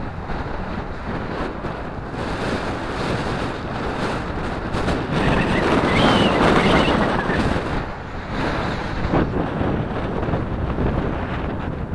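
Wind buffeting the microphone of a moving bicycle rider: a steady rushing noise that swells for a few seconds in the middle.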